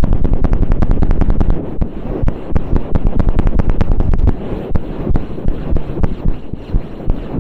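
Ear-cleaning tools scraping and rubbing rapidly on a microphone's ear, close and loud, in quick strokes several a second over a low rumble. The strokes ease and thin out from about four and a half seconds in.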